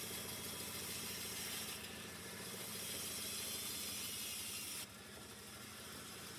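A woodworking machine running steadily with a low, even hum and a high hiss over it; the hiss cuts off about five seconds in while the hum carries on.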